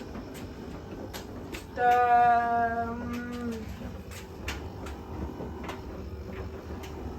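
A person's voice holding a drawn-out hesitation sound at a steady pitch for about a second and a half, starting about two seconds in, among scattered light clicks and knocks.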